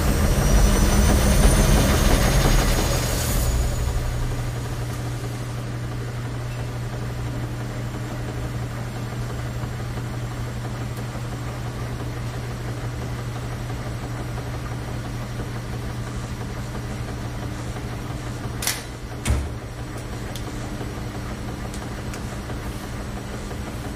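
A rushing swirl with rising whistles dies away after about three seconds into the steady low hum of a front-loading laundromat washing machine running. About two-thirds of the way through come two sharp clicks, the second with a dull thud.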